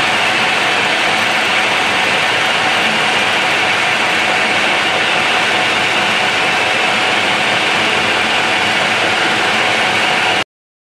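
Metal lathe running with a steady, even mechanical noise while the compound slide is hand-fed to take a very fine taper cut. The sound cuts off suddenly just before the end.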